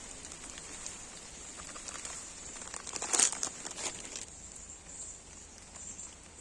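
Crinkling, rustling handling noise, with a short burst of crackles about three seconds in.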